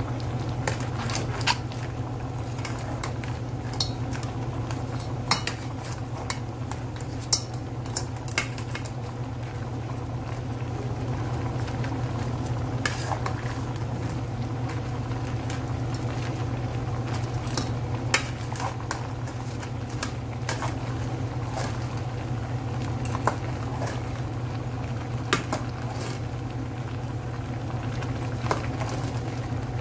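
Metal spoon stirring crabs in thick sauce in a stainless steel pot, with irregular clinks and scrapes of the spoon against the pot, over a steady low hum and faint bubbling of the simmering sauce.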